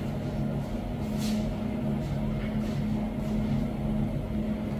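A steady low machine hum, running evenly throughout.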